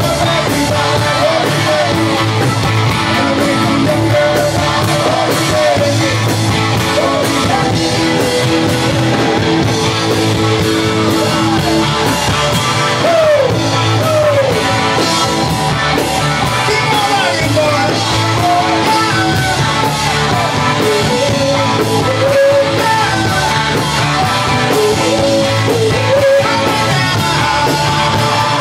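Live rock band playing: electric guitars with bent notes over keyboard and drums, loud and steady throughout.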